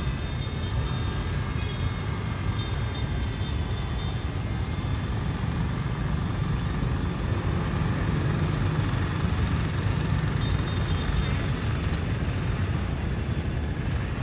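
A steady low outdoor rumble, with the faint high whine of a small RC helicopter's electric motor and rotor coming and going over it.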